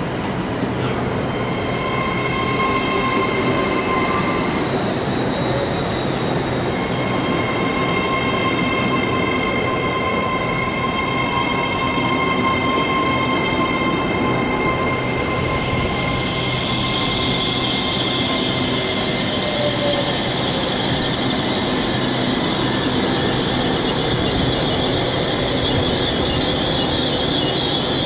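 GWR Class 800 Intercity Express Train moving slowly along the platform, its running noise carrying steady high-pitched squealing tones. The tones break off about four seconds in and return at about six seconds. From about sixteen seconds in they give way to a harsher, hissing high squeal.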